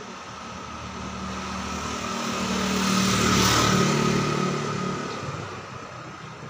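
A motor vehicle passing on the street. Its engine grows louder, peaks about three and a half seconds in with a drop in pitch as it goes by, then fades away.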